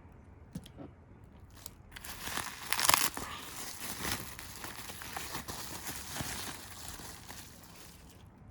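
Packaging crinkling and rustling as it is handled and opened, with a few light clicks at first, the crinkling starting about two seconds in, loudest soon after, then trailing off near the end.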